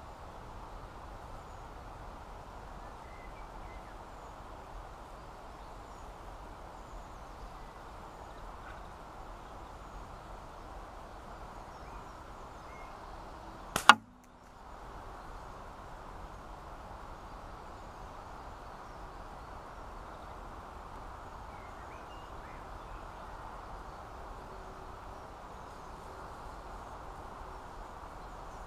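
Steady faint background hiss, broken about halfway by a single sharp, loud crack, with a fainter snap just before it: a catapult shot striking at a knock-down target without knocking it over.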